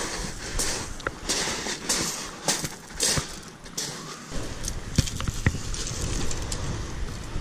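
Footsteps crunching over shingle pebbles at a walking pace, a step a little under every second, for the first four seconds. After that, wind on the microphone as a low rumble, with a couple of sharp clicks.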